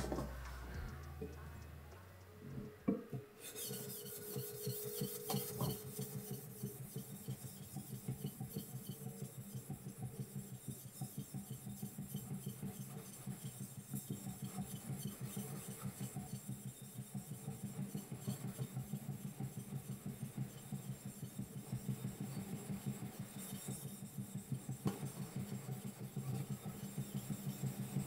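Kurouchi gyuto knife blade being sharpened by hand on a wet Mikawa Shiro Koma Nagura natural whetstone: a steady rasping rub of quick, even back-and-forth strokes, starting about three seconds in. This is the natural-stone polishing stage of sharpening.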